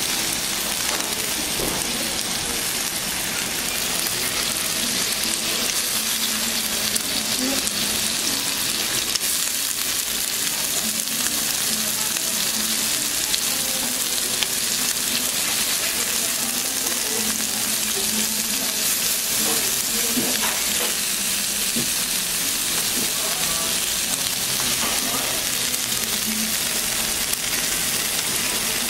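Pork belly frying on a Korean barbecue grill plate: a steady sizzling hiss of fat cooking on the hot plate.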